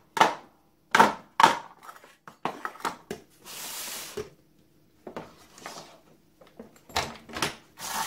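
Aluminium ingots knocking and clinking as they are set into a metal muffin tin, a string of sharp separate clacks. About three and a half seconds in, a short scraping slide as a metal crucible is lowered into the top of a coffee can furnace, then more light clinks.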